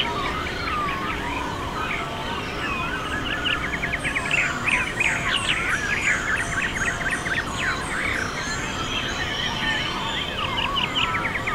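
Chorus of many small birds singing at once: overlapping chirps, whistled sweeps and fast trills, busiest from about four seconds in, over a steady low background rumble.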